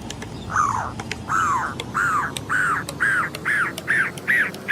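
A bird calling in a string of short, squeaky, arched calls that come faster and climb higher in pitch.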